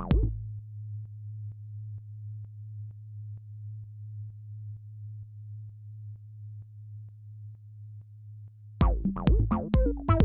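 Live techno from drum machines and synthesizers: a fast pattern of pitched hits cuts out just after the start, leaving a steady low bass drone. Near the end the pattern comes back in at full level.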